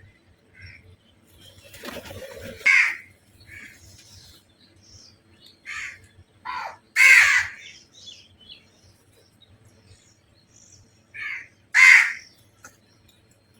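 Crows cawing: a series of harsh, separate caws at irregular intervals, the three loudest about three, seven and twelve seconds in, with fainter caws between them.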